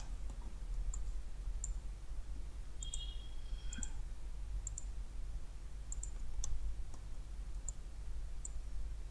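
Computer mouse buttons clicking, short, light and irregular, about one or two clicks a second, over a low steady hum.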